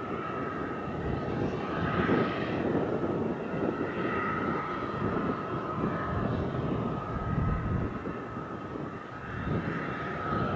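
Boeing 737 airliner's jet engines running at low power: a steady high whine over an uneven low rumble that swells and fades.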